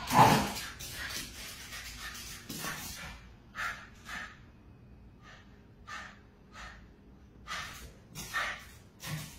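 Dog and cat play-fighting: a loud burst at the very start, then a string of short, breathy huffs and snorts a fraction of a second each.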